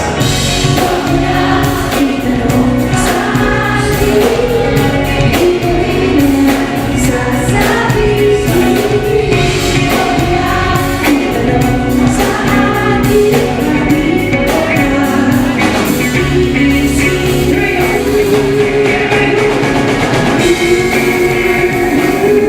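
Live band music with singing: drums and bass keep a steady beat under the vocals.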